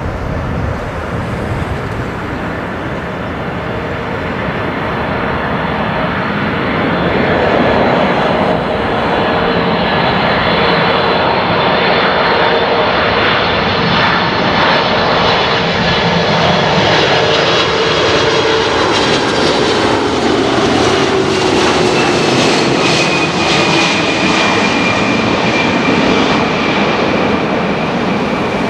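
Four-engine Boeing 747-400 jet on landing approach, its engine noise growing louder over the first several seconds and then holding loud as it comes close, with engine whines that fall in pitch in the second half as it passes by.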